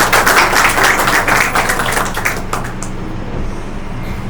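Audience clapping, dying away about three seconds in and leaving a steady low hum.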